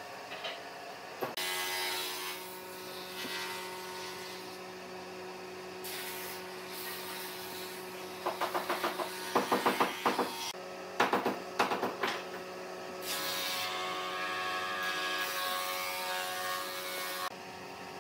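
Workshop sound with a steady low machine hum and stretches of hiss that start and stop abruptly. About halfway through comes a run of quick, loud knocks or pops, several a second.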